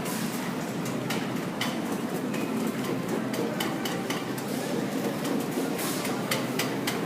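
Shopping cart rolling through a supermarket, its wheels and basket rattling with irregular clicks over a steady hum of store background noise.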